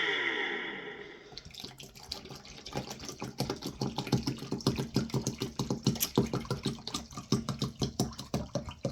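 Water glugging and splashing in irregular pulses, several a second, as a 500 ml measure of water is poured out. A falling whine fades away in the first second, as the vacuum's motor winds down.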